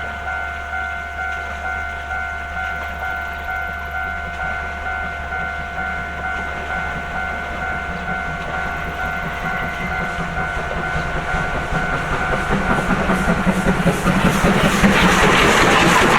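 Railroad crossing warning bell ringing steadily at about two strikes a second, while a train comes through the crossing; its wheel clatter grows louder and covers the bell over the last few seconds.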